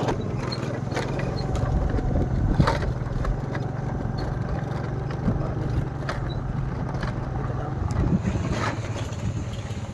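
A small vehicle engine running steadily, with a few sharp knocks and rattles along the way.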